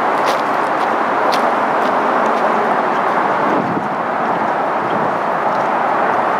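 Steady roar of traffic, with a couple of footsteps crunching on gravel in the first second or so.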